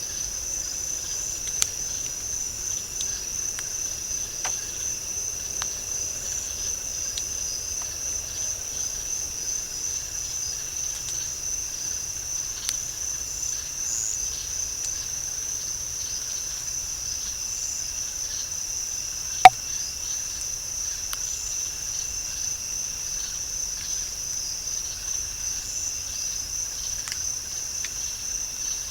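Steady, high-pitched chorus of night insects in a swamp, with a single sharp knock about two-thirds of the way through, the loudest sound here, and a fainter tick near the start.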